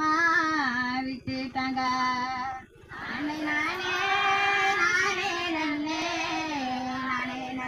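A woman singing into a microphone, her voice amplified. One phrase ends about two and a half seconds in, and after a short breath a higher phrase follows, with long held notes.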